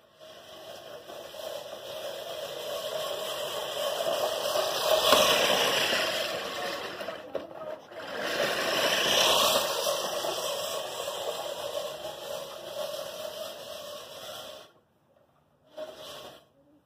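14-inch five-blade American Lawn Mower Co. 1304-14 push reel mower whirring as its spinning reel cuts grass. It grows louder as it is pushed close, is loudest twice, then stops suddenly near the end, with one short burst just after.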